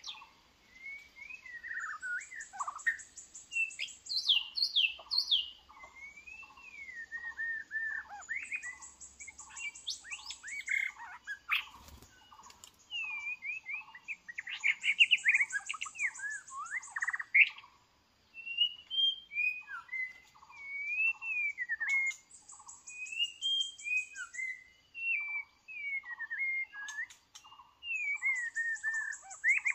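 White-rumped shamas singing: varied clear whistles that rise and fall, over a steady run of short low notes repeated about twice a second, with a high rapid rattle coming back every few seconds.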